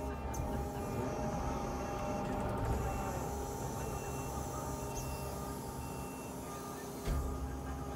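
Kubota skid steer's diesel engine running steadily, with a short knock about seven seconds in.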